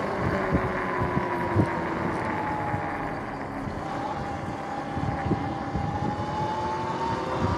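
Electric dirt bike's motor and drivetrain whining on the move over tyre and wind noise, the whine dropping in pitch as the bike slows and rising again as it picks up speed near the end.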